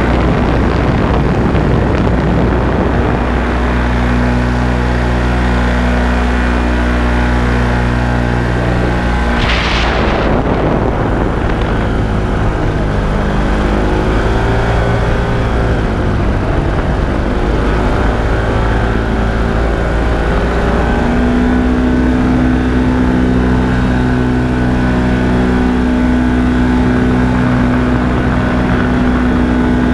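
Paramotor engine and propeller running steadily at cruise in flight, its pitch wavering slightly partway through, with a brief whoosh about ten seconds in.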